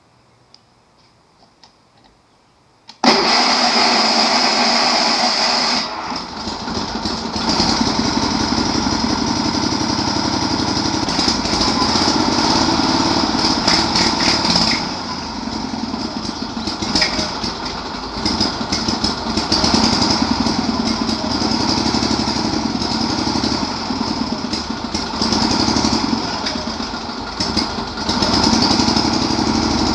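Sears SS/16 riding lawn mower's engine firing up about three seconds in and running unevenly, its speed rising and falling again and again.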